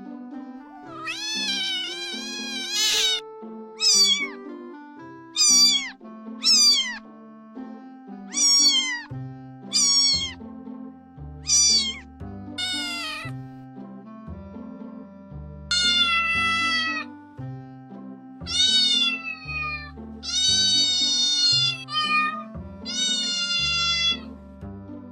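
Kittens meowing over and over: about a dozen high-pitched meows, each bending up and then down, some short and some drawn out. They are laid over background music, whose bass line comes in about nine seconds in.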